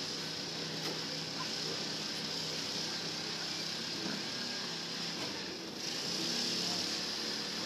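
Steady outdoor background noise: a constant high hiss over a low hum, with no distinct event. The hiss dips briefly a little past five seconds in.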